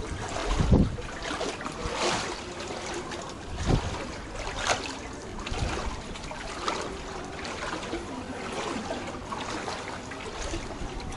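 Wading steps through shallow floodwater: irregular swishing and splashing water, with a few low thumps.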